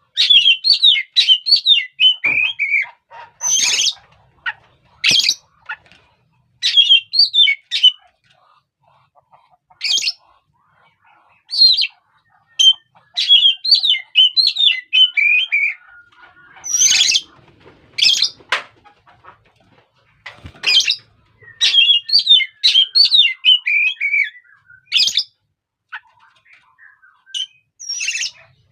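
Oriental magpie-robin (kacer) singing: bursts of quick, varied whistled and warbled phrases a second to a few seconds long, separated by short pauses, with a few sharp harsh calls in between.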